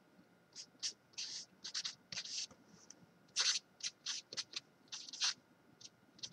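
Felt-tip marker writing on a sheet of paper: a run of short, irregular scratchy strokes as letters and symbols are written.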